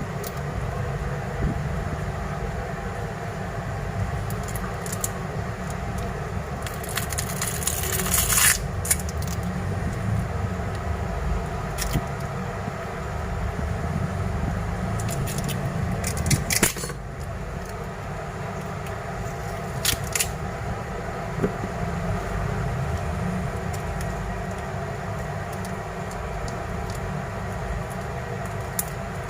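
Small tools and phone parts being handled on a workbench during a phone screen repair: scattered light clicks and taps, with a longer scraping burst about a quarter of the way in, over a steady low hum.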